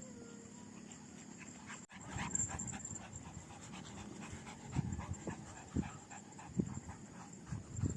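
An animal panting or breathing in short, irregular bursts that grow louder in the second half, over a steady high-pitched tone.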